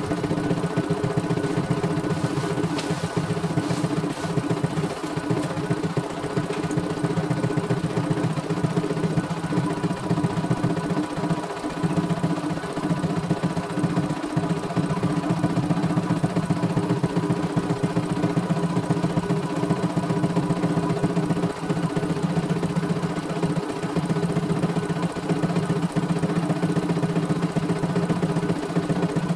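CNY E900 computerized embroidery machine stitching a test design: rapid, even needle strokes over a steady motor hum. The seller judges the test run to be smooth and free of trouble.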